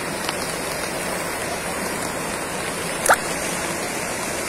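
Steady rush of falling water in the rain, from heavy rainfall and the monsoon-fed waterfalls pouring off the sandstone cliff. About three seconds in, one brief, high, rising chirp.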